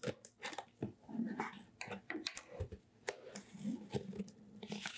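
Packing tape being peeled off a cardboard shipping box: irregular crackling and ripping, with the cardboard flap rubbing and creaking as it is pulled up.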